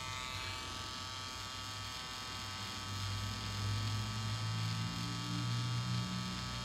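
Permanent-makeup tattoo pen buzzing steadily as it is worked into an old eyebrow tattoo to lift the pigment, with a deeper hum that comes in about three seconds in.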